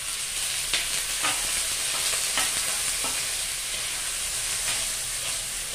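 Pieces of smoked fish (iwak pe) tipped into hot oil and spices in a wok, setting off a loud, steady sizzle that starts at once. A metal spatula scrapes and clinks against the wok several times as the fish is stirred.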